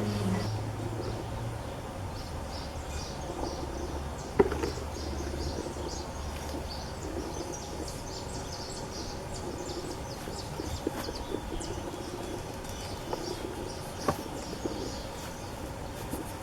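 Outdoor ambience with many short, high bird chirps. A low steady hum fades out after the first few seconds, and there is a sharp knock about four seconds in and a lighter one near the end.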